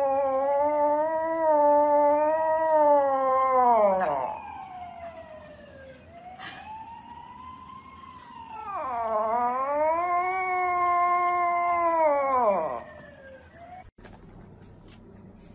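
Small poodle howling: two long, wavering howls, each rising at the start and sliding down at the end, with a fainter howl between them. The howling stops about thirteen seconds in, leaving a quiet background with a few light clicks.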